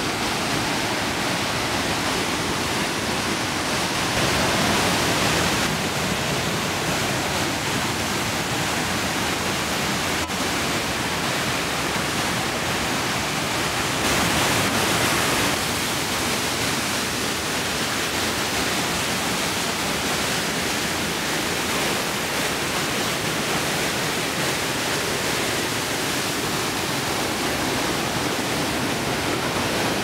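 Mountain creek rushing over boulders in a steep whitewater cascade: a loud, steady rush of falling water that swells a little twice for a second or two.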